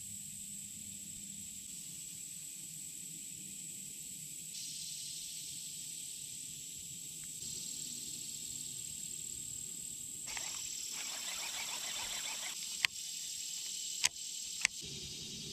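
Steady high-pitched insect chorus. About ten seconds in there is a louder rustle lasting about two seconds, then three sharp clicks near the end.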